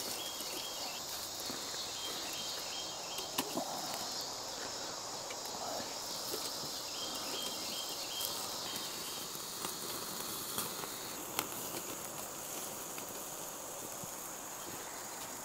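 Steady chorus of insects: a high drone with a repeating chirping trill, one band of it dropping out about two-thirds of the way through. Under it is a faint sizzle from lamb fat cooking over a small wood fire, with a few sharp pops and crackles.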